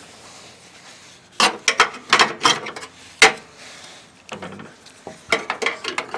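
Metal battery brackets clinking and knocking against the lawn tractor's frame as they are handled and fitted into the battery compartment: a few quick clicks about a second and a half in, one sharp knock a little after three seconds, then more light clicks near the end.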